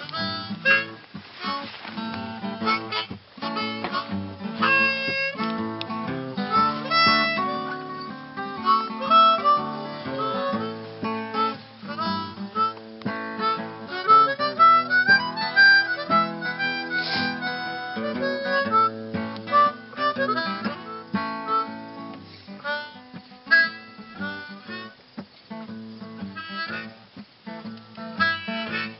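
Music: harmonica played over acoustic guitar.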